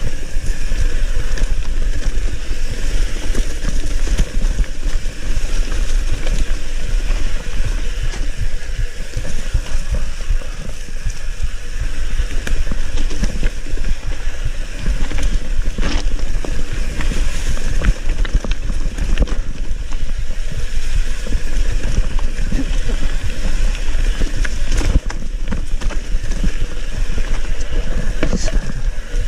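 Mountain bike riding down a rough dirt and stone singletrack: tyres running over the ground and the bike rattling, with wind rumbling on the microphone. Short knocks from the trail come throughout, the sharpest about halfway through and twice near the end.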